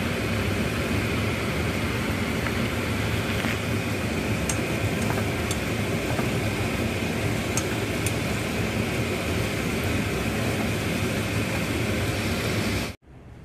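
Tempe and chillies stir-frying in a wok: a steady frying rush with a few faint clicks of chopsticks against the pan, which cuts off suddenly near the end.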